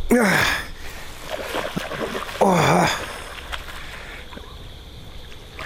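A hooked carp splashing at the water's surface as it is drawn in on the line, with two short wordless exclamations from the angler, one at the start and another about two and a half seconds in.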